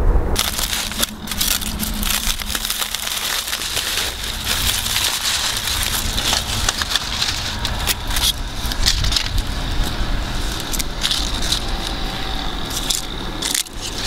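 Knife cutting through the seared crust of a reverse-seared tomahawk steak on a wooden cutting board: dense, crackly crunching. It starts abruptly just after the start and breaks off briefly near the end.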